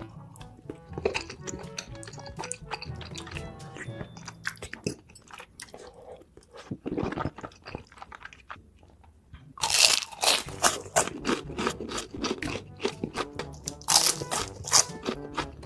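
Close-miked eating: softer chewing at first, then loud crunchy bites and chewing of crisp food from about two-thirds of the way through, with another loud burst of crunching near the end. Background music with a steady beat plays underneath.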